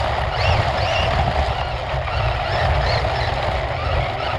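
Electric RC car driving over concrete, heard from a camera mounted on the car: a steady, fluttering rumble of vibration and rolling tyres mixed with motor and drivetrain noise. Short, high chirps recur over it.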